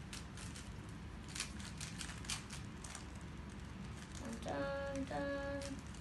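Plastic Rubik's cubes being twisted by hand: quick irregular clicks and clacks of the layers turning. A child hums two short notes about four and a half seconds in.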